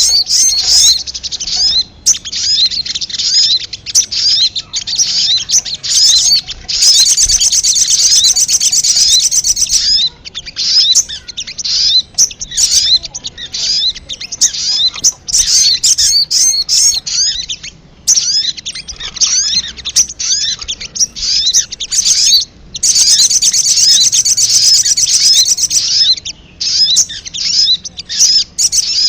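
Crimson sunbirds (sogok ontong) calling: rapid, high, sharp chirps in quick succession, broken by two stretches of fast trilling, about seven seconds in and again about 23 seconds in.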